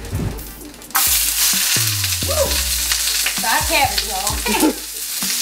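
Chopped onions dropped into hot oil in a frying pan, sizzling loudly from about a second in.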